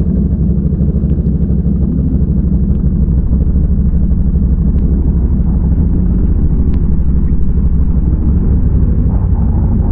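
ATV engine running steadily under way, a loud low rumble with no change in pace.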